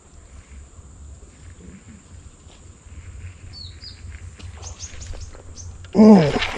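Quiet outdoor background with a low steady rumble and a few faint bird chirps. About six seconds in, a sudden loud burst and a man's falling shout as the baitcasting rod is jerked upward.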